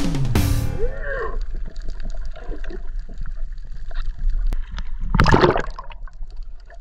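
Underwater sound picked up by a submerged camera: water gurgling and sloshing with scattered sharp clicks, and a short loud rush of water about five seconds in. Background music fades out in the first half-second.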